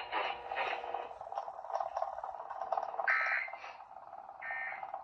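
Emergency Alert System end-of-message data bursts through an alarm clock radio's speaker: over a steady radio hiss, two short, harsh two-tone digital squawks sound about three seconds in and about a second and a half later, marking the end of the warning.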